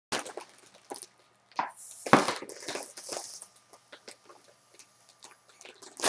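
Foil (Mylar) helium balloon crinkling and crackling as it is squeezed against the mouth, with a breathy hiss of helium being sucked in from about two to three and a half seconds in.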